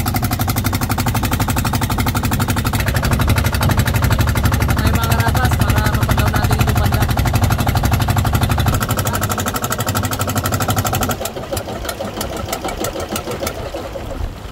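Small inboard engine of an outrigger boat running, a steady rapid beat of firing pulses. It grows quieter about eleven seconds in.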